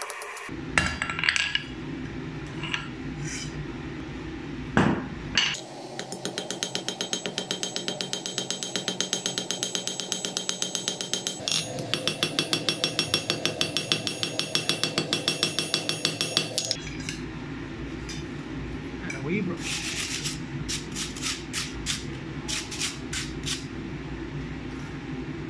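Hand hammer striking red-hot steel on an anvil: a fast run of blows, several a second, with a bright metallic ring, from about six seconds in to about seventeen, then a few separate, spaced strikes near the end. The smith is drawing down thick stock for a small pendant.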